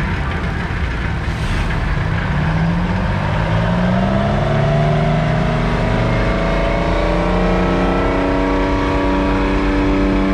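Euclid rock truck's diesel engine revving up as the loaded truck pulls away. Its pitch climbs over a few seconds, then holds steady at the higher speed.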